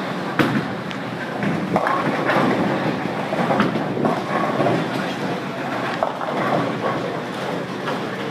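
Bowling alley din: balls rolling down the wooden lanes with a steady rumble and pins clattering on the lanes around, with sharp knocks every second or so.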